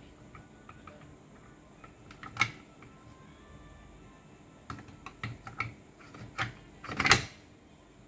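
Scattered clicks and knocks of hard parts being handled and fitted while a Makita M8600B demolition hammer is worked on. A sharp knock comes about two and a half seconds in, a run of lighter clicks follows, and the loudest knock comes near the end.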